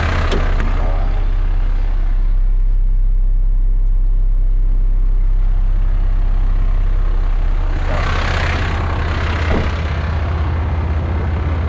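Heavy diesel truck engine idling with a steady low rumble, with a brief hiss about eight seconds in.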